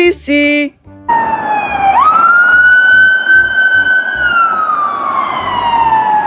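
Police car siren wailing. Its single tone starts about a second in, dips slightly, jumps up sharply, holds high, then glides slowly down.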